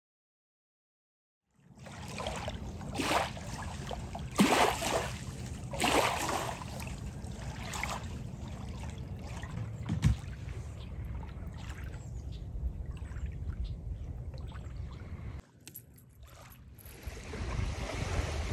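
Silent for the first couple of seconds, then wind blowing over the microphone and lake water lapping at the shore, with a few louder rushes in the first half.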